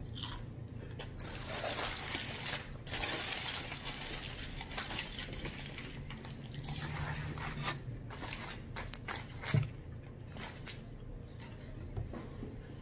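Close-up eating sounds: chewing and crunching of fried catfish and fries, with sharp clicks and crinkling of paper and foil as the food and its wrapping are handled. A dense stretch of crackle comes about one and a half to three and a half seconds in.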